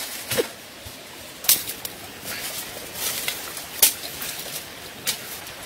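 Sharp, separate cracks, four or so spaced a second or more apart, over faint outdoor background noise.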